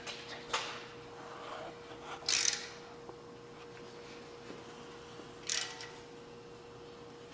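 Parts and hand tools being handled on a workbench: three short scrapes, the loudest about two and a half seconds in, over a faint steady hum.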